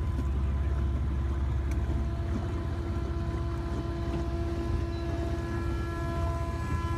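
A small boat's motor running steadily under way, with an even low, fast-pulsing engine note and a steady hum above it.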